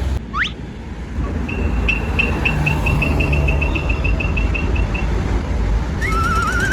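A low vehicle engine rumble. Over it come a quick rising whistle, then a run of high ticks at about four a second, and near the end a wavering whistle that climbs in pitch.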